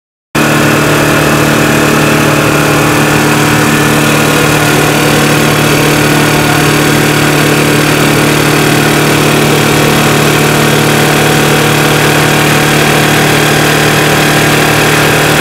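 Air-powered vibratory screener running, its Cleveland Vibrator 1200 VMSAC air-cushioned piston vibrator shaking a screen deck loaded with animal feed pellets. A loud, steady hum over a hiss, cutting in abruptly right at the start.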